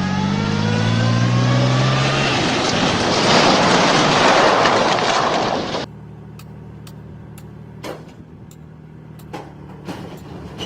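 A heavy vehicle's engine revving, rising in pitch over the first couple of seconds under a loud rushing noise. About six seconds in the sound cuts off abruptly to a quieter steady engine running, with scattered sharp clicks and knocks.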